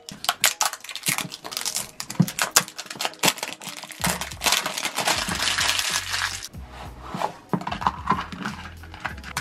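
Clear plastic shrink wrap being picked at and peeled off a cardboard toy box, with sharp crackles and clicks, then a dense stretch of crinkling from about four to six and a half seconds in. Background music with a low bass comes in around the middle.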